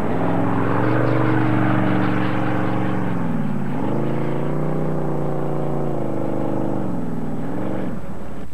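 Drag boat engine running, its pitch climbing at first, then dropping briefly and climbing back about four seconds in and again near the end, as the throttle is eased and reapplied.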